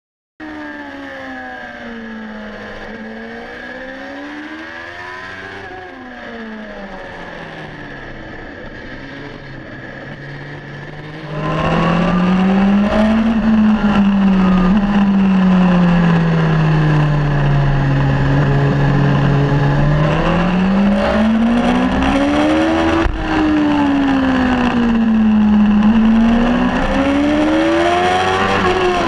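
BMW HP4 Race superbike's inline four-cylinder engine at racing revs, the pitch climbing and falling every few seconds as the bike accelerates and slows around the track. The engine note becomes much louder about eleven seconds in.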